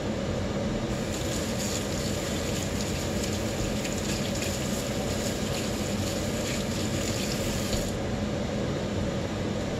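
Kitchen tap running for about seven seconds, starting about a second in and shutting off near the end, over a steady background hum.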